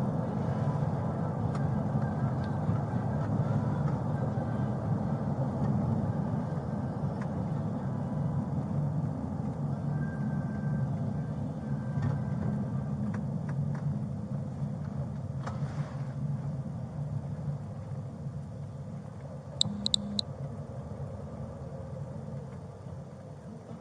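Steady road and engine noise inside a moving police car's cabin, slowly quietening near the end as the car slows. A few quick high beeps sound briefly about twenty seconds in.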